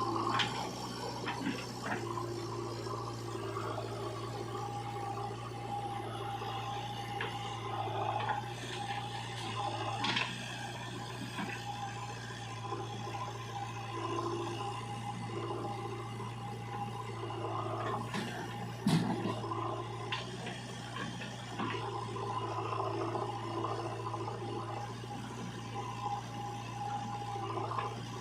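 Diesel engines of a backhoe loader and tractor running steadily under working load, with wet mud sloshing and a few sharp knocks, the loudest just before the middle.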